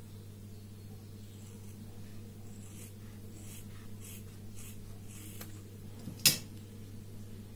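Hands working a cardboard template against a fabric face mask, making a run of soft scratchy rubbing strokes, then one sharp snip of scissors about six seconds in. A steady low hum runs underneath.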